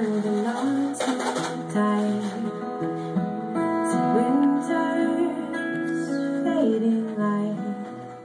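Two acoustic guitars playing together live, strummed and picked chords, fading briefly near the end.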